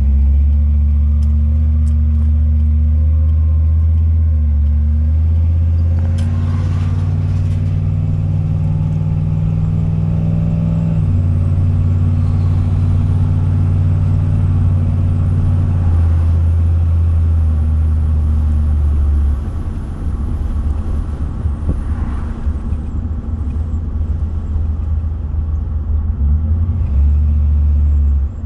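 Dodge truck with a freshly rebuilt 46RE automatic transmission and new torque converter driving, heard from inside the cab: a steady low engine and drivetrain drone that steps in pitch several times. About two-thirds of the way through it drops in level and turns into a rougher rumble.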